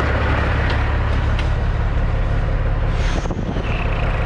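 CAT C15 diesel engine of a 2006 Peterbilt 379 semi idling steadily, with a short burst of noise about three seconds in.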